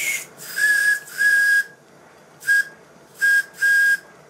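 Steam whistle on a 5-inch gauge live-steam model locomotive, blown in short blasts on about 30 psi of steam. A hissy spurt at the start, as water clears from the whistle piping, is followed by five short toots of a single high, steady tone with steam hiss around each.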